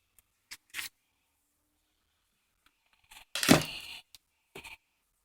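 Cardboard shipping box being opened by hand: short scrapes and rustles of cardboard and packing, then a loud burst of tearing and scraping about three seconds in.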